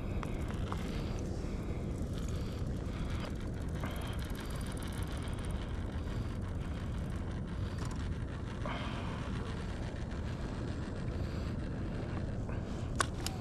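Steady low rumble of wind and water around a kayak at sea, with one sharp click near the end.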